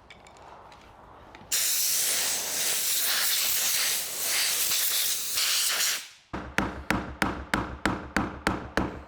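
A loud, steady hiss lasting about four and a half seconds, then a quick run of light hammer taps, about four a second, driving round the steel locking ring of a fuel tank sender unit to loosen it.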